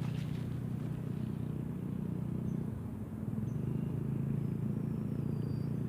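A steady low mechanical hum that dips briefly about halfway through, with faint thin high whistles near the end.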